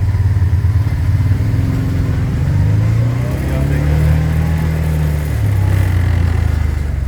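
Dune buggy engine running under load, its pitch climbing for a couple of seconds, holding, then dropping back about five seconds in.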